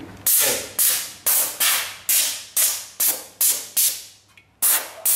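Compressed-air blow gun fired in short, sharp blasts, about two a second, each hiss cutting in suddenly and fading. It is blowing dust out of the transformer windings of an opened single-phase welding machine. There is a brief pause near the end.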